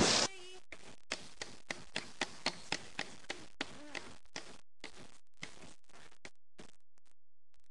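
A loud burst of noise cuts off right at the start. Then a spinning prize wheel's pointer clicks against its pegs, quick at first and spacing out as the wheel slows, the clicks fading near the end.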